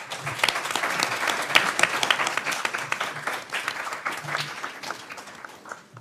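An audience of a few dozen people applauding. It starts at once, is loudest in the first couple of seconds, and thins out toward the end.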